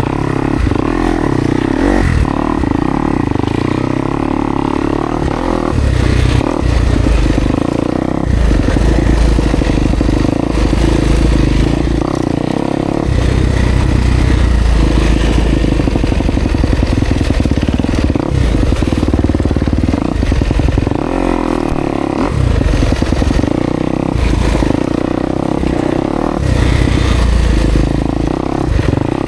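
Kawasaki KX250X dirt bike's four-stroke single-cylinder engine running at low, changing throttle, rising and falling every few seconds, with scattered knocks and clatter from the bike.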